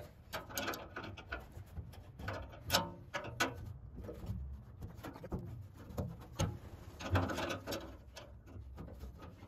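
Union nut being screwed and tightened onto a threaded fitting to crimp a compression olive onto a new stainless-steel petrol line: irregular metallic clicks and short scrapes in several short spells.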